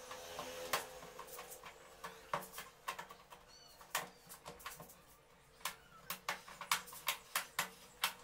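Irregular sharp clicks and taps from hands handling the edge and frame of an opened LED TV panel, coming more thickly in the second half, over a faint steady hum.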